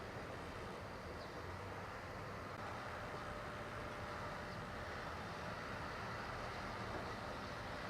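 Steady traffic noise from vehicles passing on a busy road.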